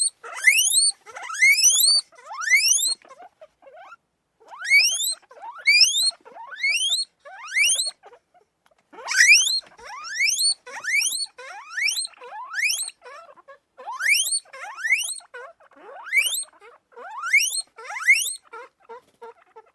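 Guinea pig wheeking: shrill squeals that each sweep sharply upward in pitch, coming in quick runs of two or three with short pauses between.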